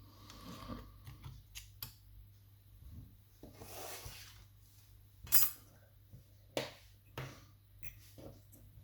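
Metal levers and parts of a lever mortice lock clicking and clinking as they are handled and slotted back into the lock, with a short scraping rustle about four seconds in.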